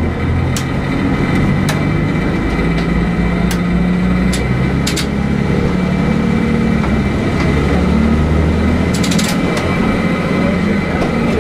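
Diesel railcar engine running under the cab, its note stepping up in pitch and getting stronger a few seconds in as the railcar pulls away, with a few sharp clicks scattered through.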